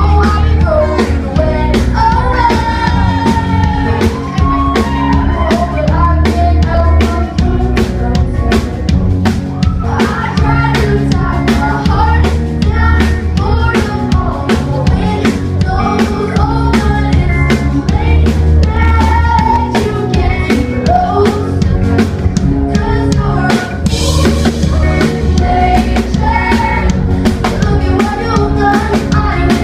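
Live pop band playing: a woman singing lead over a steady drum-kit beat, about two hits a second, with heavy bass.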